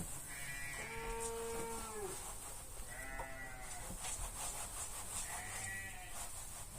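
Sheep bleating three times: a long bleat that drops in pitch at its end, then two shorter bleats a second or so apart.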